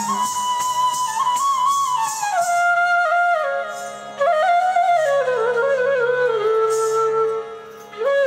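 Recorded Odissi dance music: a flute playing a slow, ornamented melody in raga Charukeshi over a steady drone, in phrases that sink in level briefly about four seconds in and again near the end.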